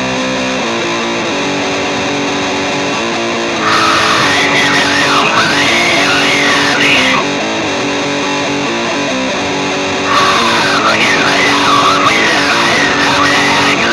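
Guitar music: a steady bed of sustained electric guitar chords, with a higher, bending melody line coming in about four seconds in and again about ten seconds in.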